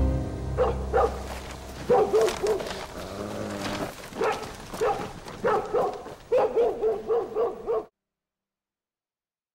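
Dog barking repeatedly: short barks, some single and some in quick runs, with the quickest run near the end. The barking cuts off suddenly about eight seconds in.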